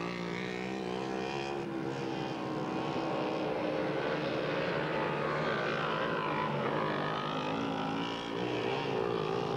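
Mini bike engines running, several at once, their pitch wavering up and down as they rev.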